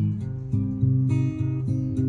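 Recorded music played back from a CD through a Marantz CD5003 player and PM5003 amplifier, two to four seconds into a track, with sustained low notes that change about every half second.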